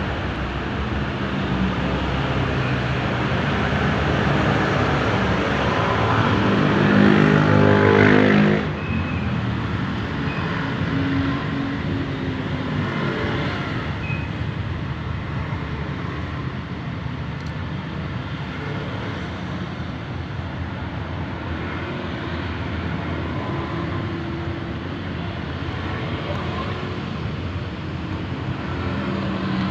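Motor vehicle noise: a steady rumble and hiss. From about six seconds in, an engine note rises in pitch and grows louder, then cuts off suddenly a couple of seconds later.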